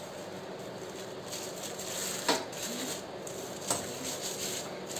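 Thin plastic sheets crinkling and rustling under palms pressing dough flat, with two sharper crackles a little after two seconds and again near four seconds.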